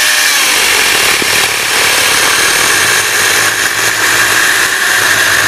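Cordless 18-volt one-handed mini chainsaw with an 8-inch bar cutting through a log about 15 cm thick: a steady motor-and-chain whine with the rasp of the chain in the wood. It runs without bogging down, cutting with no strain even with the whole bar buried in the cut.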